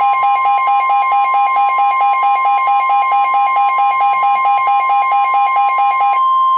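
Emergency Alert System attention tone: a loud, steady two-tone alarm, the lower tone pulsing rapidly, several times a second. Near the end the lower tone cuts off and the higher tone carries on alone.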